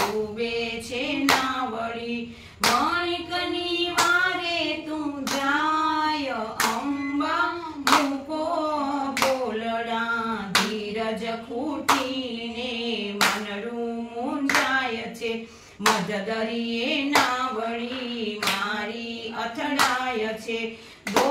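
Women singing a Gujarati devotional garba to the Mother Goddess, clapping their hands in time with the song, about one to two claps a second.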